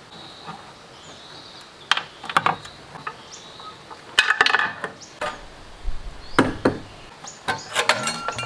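Metal parts clanking and scraping as the hold-down rod and sheet-metal fuel tank are taken off an old single-cylinder diesel engine. There are several sharp knocks, some ringing briefly, with the thickest cluster about four seconds in and another near the end.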